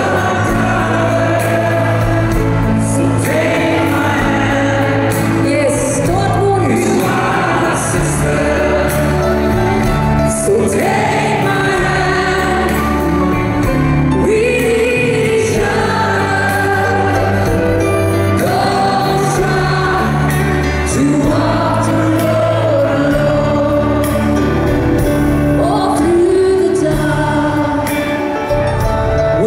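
Live pop band music: a woman and a man singing together into microphones over bass, drums and acoustic guitar, with the voices blending like a choir.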